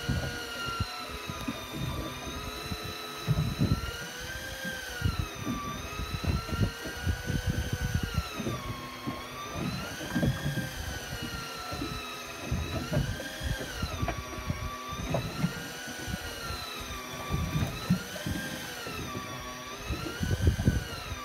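Daiwa Tanacom Bull 1000 electric fishing reel's motor running with a whine, its pitch rising and falling every few seconds, over irregular low buffeting.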